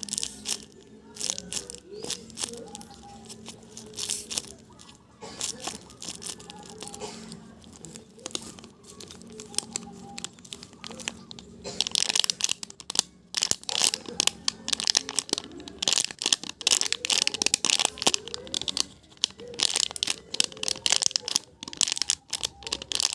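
Crinkling and crackling of a squishy being squeezed and handled over and over, the crackles growing denser about halfway through.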